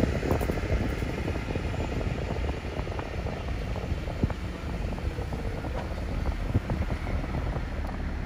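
Car rolling slowly along a road: a steady low rumble of engine and tyres, with scattered small clicks and knocks.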